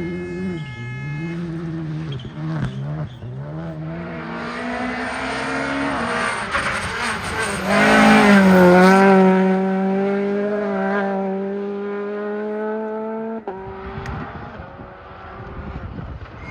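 Rally car engine at high revs, the pitch dropping and rising through gear changes as the car approaches, loudest as it passes close about eight seconds in. It then holds a high steady note for several seconds before cutting off suddenly, leaving a quieter engine sound.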